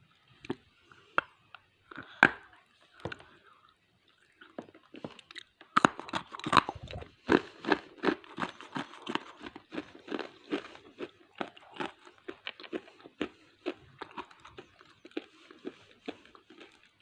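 A person biting and chewing a very hard chunk of SS Gold edible clay. A few scattered crunches come first, then from about six seconds in a steady run of crisp crunches, two or three a second.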